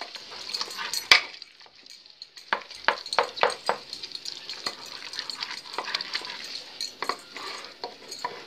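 Metal spoon stirring thick, wet saag mixed with maize flour in a steel pot, scraping and clinking against the pot in irregular strokes, with a sharp knock about a second in. A steady hiss runs underneath.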